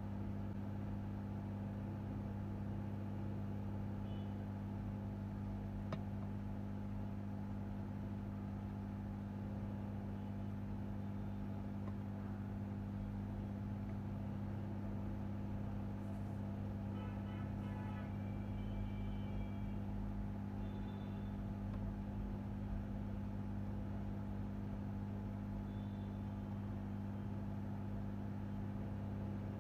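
Steady low electrical hum from repair-bench equipment, holding one pitch throughout, with a few faint high beeps a little past the middle.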